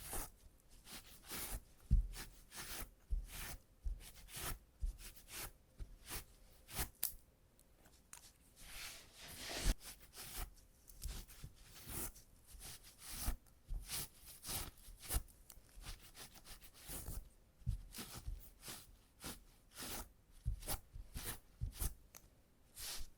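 Adhesive tape being pressed onto trouser fabric and peeled off again and again to lift embedded cat hair, giving a string of short, crackly tearing sounds a few times a second.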